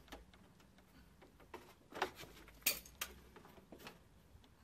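Faint knocks and clicks, a handful of them in the middle, as a sheet of milled lead is pressed and folded by hand over a timber roofing batten.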